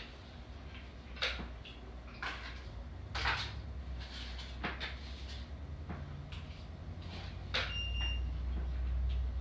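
Scattered short clicks and light knocks of a person eating at a table, hand to mouth and plate, over a steady low hum. A brief high beep sounds near the end.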